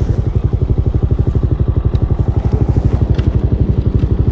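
Hawk 250 single-cylinder motorcycle engine running steadily with a rapid, even pulsing beat, picked up by a mic inside the rider's helmet.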